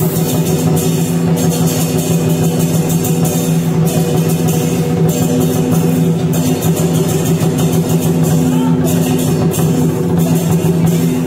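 Loud music with drums and sustained low notes, accompanying a dragon dance.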